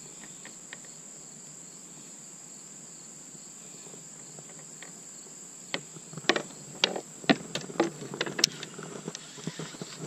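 Insects trilling in a steady high drone. From about six seconds in, a scattered series of sharp clicks and knocks from fishing gear being handled in a kayak.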